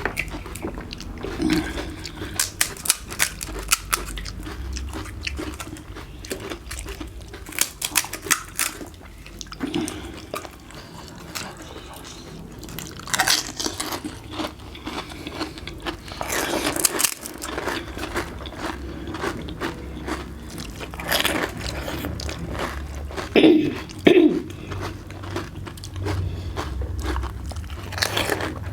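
Crisp, hollow panipuri shells crunching as they are bitten and chewed, in repeated sharp crackles with a few louder crunches, two of the loudest close together near the end.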